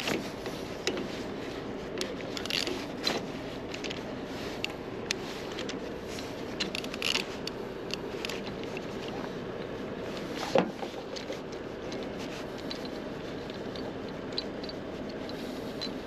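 Metal-on-metal clicks and scrapes of a gloved hand tool turning a threaded towing pin in a Scania lorry's front tow point, with one sharp knock about ten and a half seconds in, over a steady low hum.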